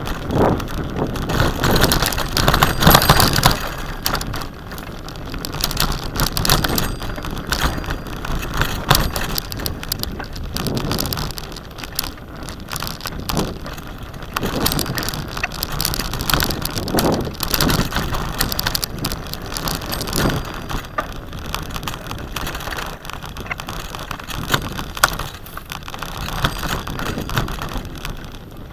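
Bicycle riding over a rough, rutted dirt track: tyres crunching on sand and the bike rattling with constant irregular crackles and clicks over the bumps.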